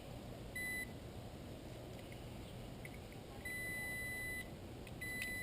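Multimeter continuity beeper sounding three times, one steady high tone: a short beep, then two beeps about a second long, as the probes are held across the fuses. The beeps show continuity, so the fuses are good.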